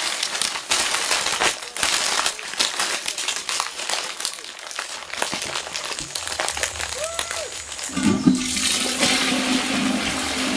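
A field recording of a toilet flushing, played in a noise set. It opens with dense crackling and clicking, gives a short rising-then-falling tone about seven seconds in, and from about eight seconds becomes a steady rush of water under a low hum.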